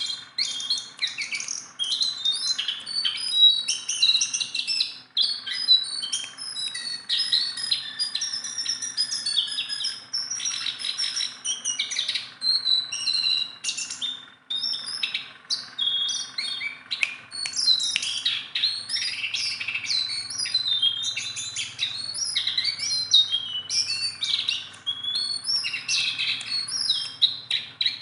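Jongkangan songbird singing nonstop: a rapid, varied stream of high chirps and short whistled notes, typical of a bird in full song.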